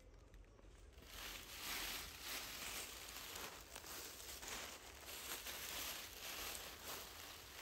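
Dry leaf litter rustling and crackling as a young monkey moves and forages through it, picking up about a second in and going on in small irregular crunches.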